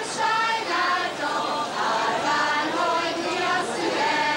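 A group of women singing a folk song together, several voices holding notes that step from one pitch to the next.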